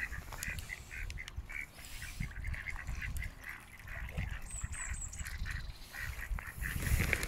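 Mallard ducks calling, a rapid run of short quacks at about three a second.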